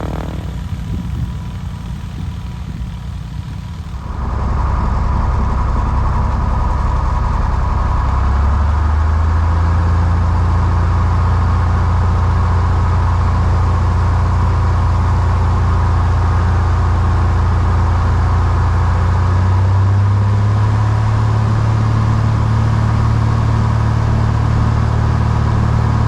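Six-cylinder Continental O-300 engine and propeller of a 1959 Cessna 172 running. About four seconds in, the throttle goes to full power for takeoff and the sound jumps in loudness. Its pitch then steps up twice as the engine speed rises.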